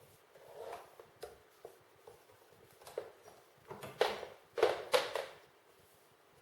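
Handling noise of a cable being run through plastic cable clips on a microphone stand: scattered clicks and rustles, the loudest few about four to five seconds in.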